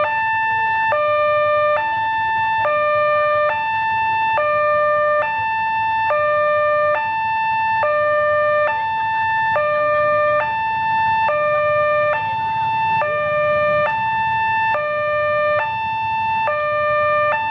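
Two-tone electronic railway level-crossing warning alarm, alternating steadily between a low tone and a higher tone, each held a little under a second.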